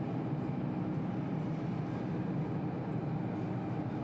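1L532 vertical turret lathe running with a steady mechanical hum.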